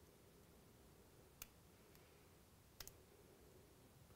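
Faint clicks of the flex-cable connectors on an iPhone 4 logic board being popped up with a nylon spudger: one about a second and a half in, then a quick pair near three seconds, over near-silent room tone.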